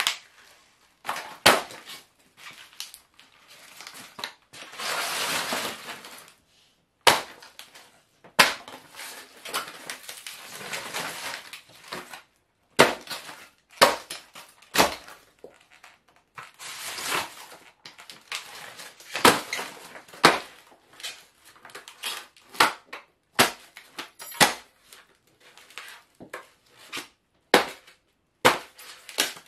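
Stiletto heels stomping on and crushing the foam airframe of a radio-controlled model aeroplane: many irregular sharp cracks and crunches of breaking foam and plastic, with a few longer stretches of continuous crunching.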